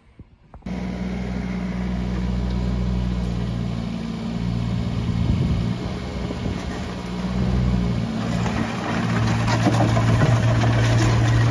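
Volvo mini excavator's diesel engine running steadily, its note shifting a little as the arm works. Its bucket hooks under and lifts a steel C-channel drain grate, with a run of clanks and scrapes of metal on concrete in the last few seconds.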